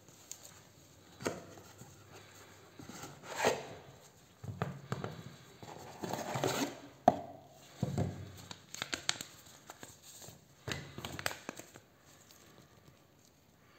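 Cardboard packaging and paper being handled by gloved hands: irregular rustling and scraping of box flaps and paper, with a few sharp taps, dying down near the end.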